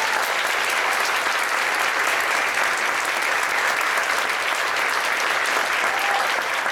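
Audience applauding steadily at the end of a choral piece.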